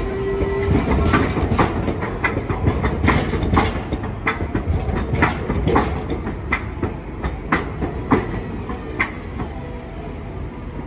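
A Hiroshima Electric Railway 3950-series 'Green Liner' articulated tram rolling slowly over points and rail crossings, its wheels clacking at uneven intervals over a low rumble. There is a short steady whine in the first second, and the clacks thin out and get quieter near the end as the tram moves off.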